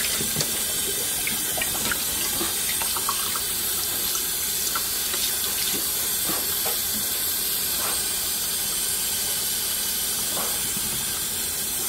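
Kitchen faucet running steadily, a stream of cold water splashing onto a beef roast in a stainless steel sink, with small splashes as hands rub the meat under the stream.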